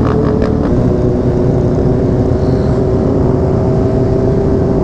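Motorcycle engine running at a steady cruise under heavy wind and road noise, its pitch easing down slightly.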